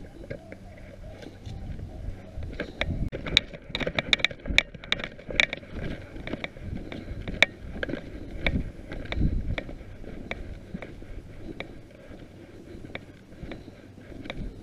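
Rustling and crackling in dry brush with footsteps, many sharp snaps and cracks coming thickest in the first half.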